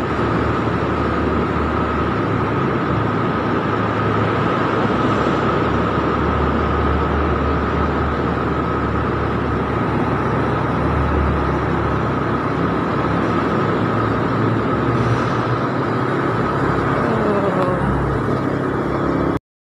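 Motorcycle riding through a road tunnel: steady wind and road noise over the motorcycle's engine and the surrounding traffic, with a steady high whine running through it. The sound cuts off suddenly near the end.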